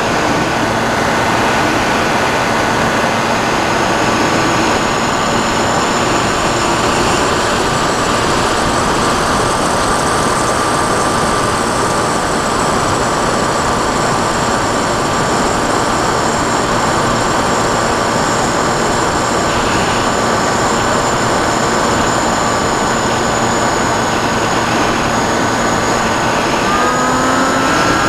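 A Sky Cruiser radio-controlled plane in flight, heard from its onboard camera: a steady rush of wind over the microphone with the motor and propeller whining at an even pitch. Near the end the whine rises in pitch.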